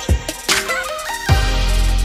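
Electronic background music with a drum beat, a synth melody climbing in steps, and a deep bass note that comes in a little past halfway.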